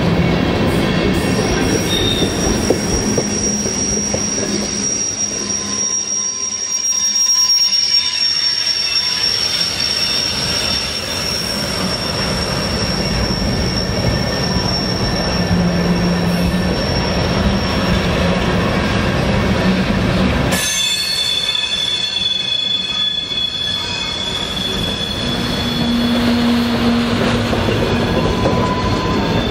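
Freight cars rolling past on a sharp curve, their steel wheel flanges squealing against the rail in long high-pitched squeals over the rumble of the wheels. The squeal's pitch shifts suddenly about twenty seconds in.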